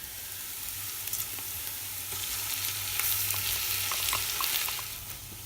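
Ginger garlic paste, onion and whole spices sizzling in hot ghee as they are stirred in the pan; the sizzle swells about two seconds in, with a few light clicks of the spoon against the pan.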